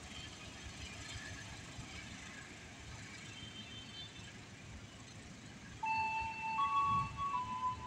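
Low station and rail background noise, then about six seconds in a chiming electronic jingle from the station's public-address system starts, its clear notes stepping from one pitch to another.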